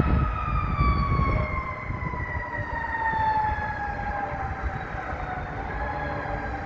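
Hawker 900XP business jet's twin Honeywell TFE731 turbofans passing on landing, a high whine that falls slowly and steadily in pitch over a low rumble.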